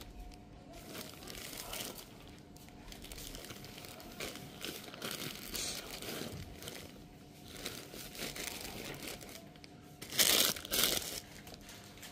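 Plastic-wrapped bedspread packages crinkling and rustling as they are handled and shifted in a bin, with two louder crackles about ten seconds in.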